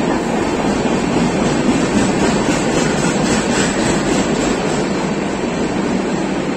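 Indian Railways express train coaches rolling past a platform, wheels running on the rails in a loud, steady noise.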